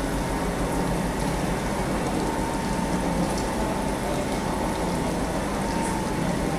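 Carpet-washing machine running, with water rushing steadily through the rug and a pump humming underneath.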